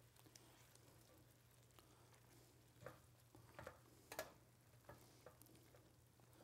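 Near silence with a faint low hum, broken by a few faint taps and scrapes of a spatula against a stainless sauté pan as lobster meat is stirred through a thick cream sauce, about three to five seconds in.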